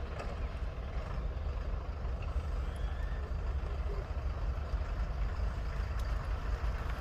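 Diesel multiple unit's engines running steadily, a low rumble with no change in pace.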